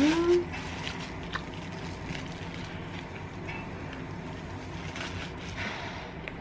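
Eating a wrapped sandwich: a few faint soft rustles and clicks from the wrapper and chewing over a steady low hum.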